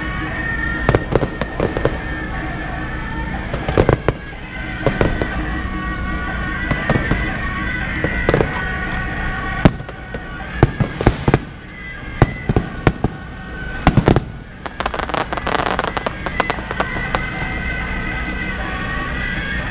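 Fireworks and firecrackers going off in irregular sharp bangs, with a cluster of loud cracks about ten to fourteen seconds in.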